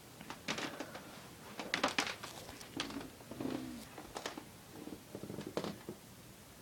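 An elderly woman snoring: a run of short, irregular snorts and raspy breaths. About halfway through, one snore carries a low, slightly falling tone.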